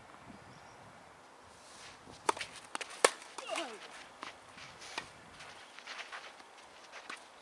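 Footsteps of a tennis player on a clay court, with a series of sharp knocks starting about two seconds in, the loudest about three seconds in.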